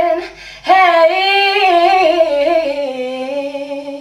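A solo voice singing without accompaniment: after a short breath it starts a phrase that steps down in pitch and ends on a long held low note.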